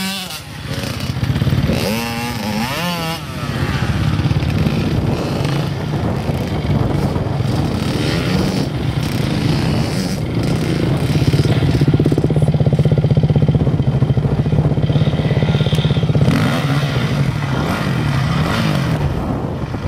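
Dirt bike engines being ridden hard over rough ground. In the first few seconds the pitch rises and falls with the throttle, then it settles into a steadier drone.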